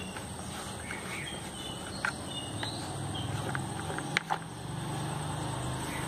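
Outdoor background of faint insect chirps and a steady high whine, broken by a few sharp clicks: one about two seconds in and two just after four seconds.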